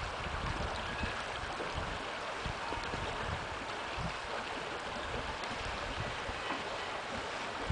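Wind blowing across the microphone: a steady rushing noise with irregular low rumbling buffets.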